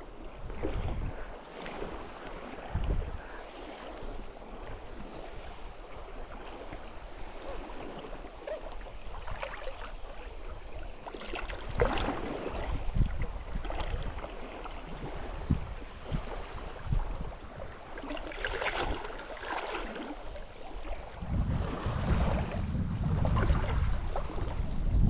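Shallow seawater sloshing and splashing around a person's legs as they wade, with scattered small splashes. Wind on the microphone, as a low rumble that builds toward the end.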